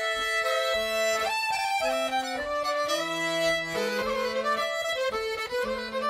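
Background music: a fiddle playing a tune.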